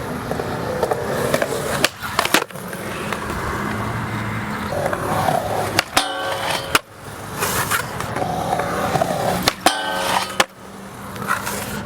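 Skateboard wheels rolling on skatepark concrete, broken by several sharp clacks of the board landing or hitting the ground, with brief ringing squeals in between.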